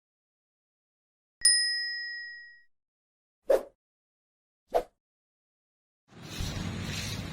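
A single bright metallic ding that rings and fades over about a second, followed by two short dull knocks about a second apart, against otherwise dead silence. A steady background noise fades in near the end.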